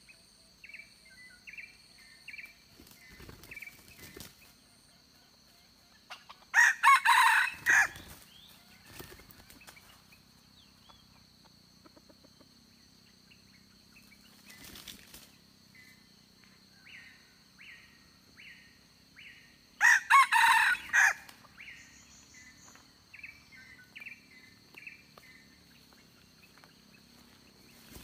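Red junglefowl rooster crowing twice, about seven and twenty seconds in, with runs of short clucking calls in between. A faint, steady high insect drone runs underneath.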